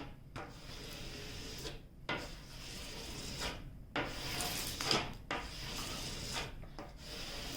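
A bone folder is rubbed in long strokes across the release paper of a diamond painting canvas, pressing out air trapped between the paper and the adhesive. There are about five strokes, each a second or more long, with short pauses between them.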